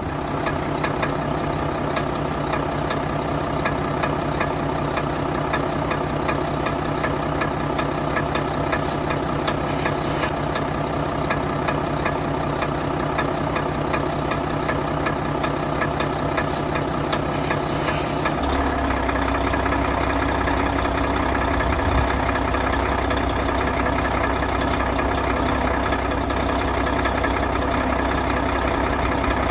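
Volvo FH4 truck diesel engine idling with a regular sharp knock. The mechanic likens the knock to early ignition on one cylinder, cause not yet known. The engine's low note changes about eighteen seconds in.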